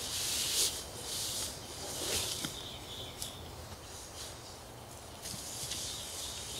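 Nylon sleeping bag rustling and swishing in several short bursts as it is pulled from its stuff sack and shaken out.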